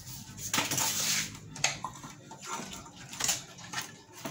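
Metal clinking and scraping from working the roller of a retensionable screen-printing frame to tighten the mesh. A longer scrape comes about half a second in, then sharp clicks, with another scrape and click near the end.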